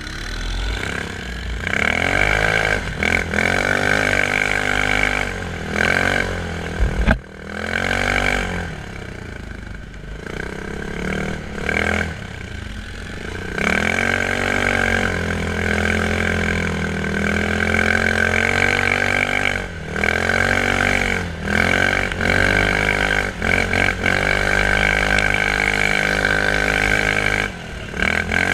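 Quad bike (ATV) engine running under way, revving up and easing off again and again, with a steady high whine over it.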